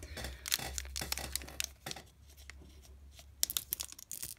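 Foil booster pack wrapper crinkling and tearing as it is handled and opened, a run of sharp crackles with a denser cluster about three and a half seconds in.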